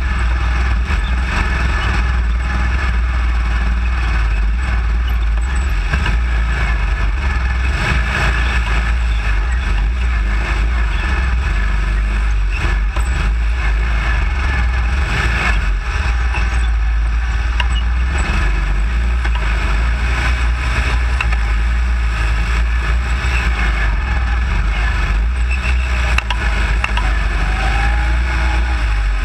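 Baja SAE off-road buggy's single-cylinder Briggs & Stratton engine running loudly and continuously, with a heavy low rumble and chassis rattle as the car works through tight turns.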